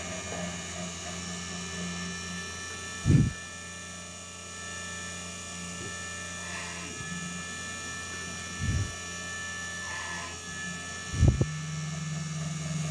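3018 desktop CNC machine running during a drilling test: a steady hum with several high, steady whine tones from its motors, broken by three short, loud low thuds about three, nine and eleven seconds in.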